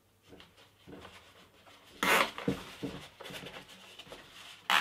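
Nylon cable tie being pulled tight around a foam-covered handle: a short loud zipping rasp of its ratchet about two seconds in and another near the end, with light handling rubs between.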